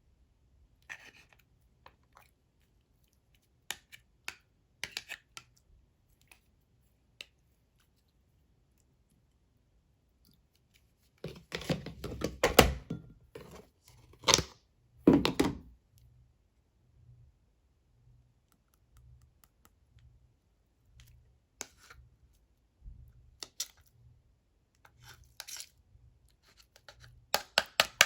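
Clear slime being played with by hand: scattered small sticky clicks and pops, with a louder run of squishing and stretching sounds about halfway through.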